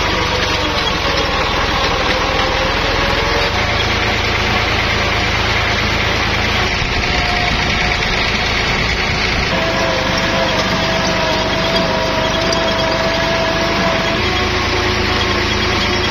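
Farm tractor engine running steadily while the tractor drives along. A steady whine joins in about halfway through and drops out a couple of seconds before the end.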